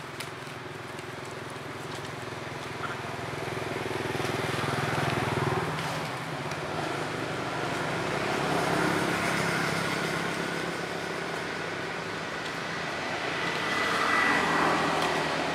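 Engine noise of passing road vehicles, a steady hum that swells and fades three times.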